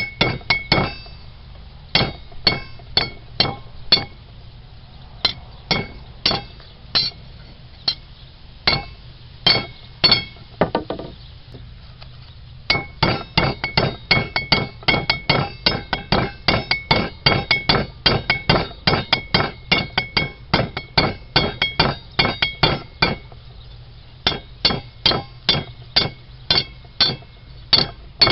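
Blacksmith's hammer striking hot rebar on an anvil in quick runs of ringing metallic blows, several a second, with short breaks about a second in, about twelve seconds in and about twenty-three seconds in.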